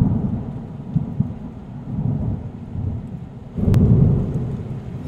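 Rolling thunder rumbling low, with a sharp thunderclap about three and a half seconds in that sets off a louder rumble.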